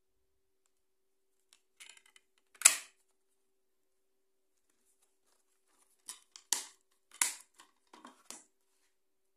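Plastic DVD keep case clicking: a few small clicks, then one sharp snap as the disc is pressed onto the case's centre hub. A few seconds later comes a run of clicks and snaps as the case is shut.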